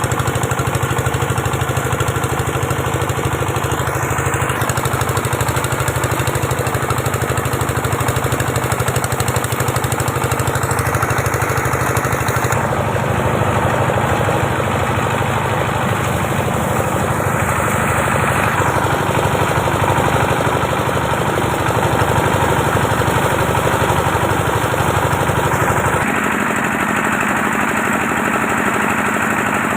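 A small engine runs steadily without a break. Its tone shifts slightly about 13 seconds in and again near 26 seconds.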